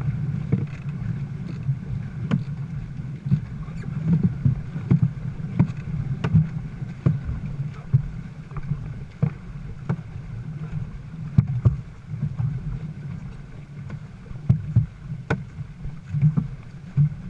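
Dragon boat paddles striking the water together in a steady stroke rhythm, a sharp hit a little over once a second, over a continuous low rush of water and wind.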